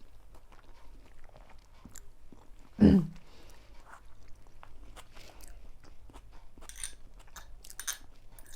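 A person chewing a mouthful of spicy chilli noodles, with many small wet mouth clicks. One short, much louder sound comes just before three seconds in.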